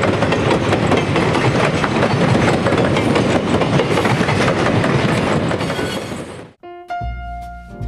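Streamlined passenger train coaches rolling past, wheels clicking rapidly over rail joints. The train sound cuts off suddenly about six and a half seconds in, and music with piano comes in near the end.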